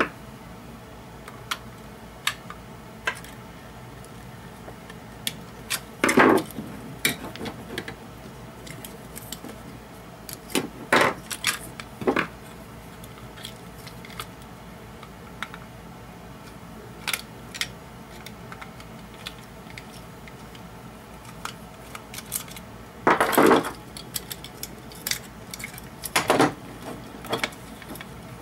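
Ibanez DE7 delay pedal's metal enclosure and circuit board being handled and taken apart by hand: scattered clicks, taps and short metallic rattles. There are louder clatters about six seconds in, around eleven seconds, and twice in the last third.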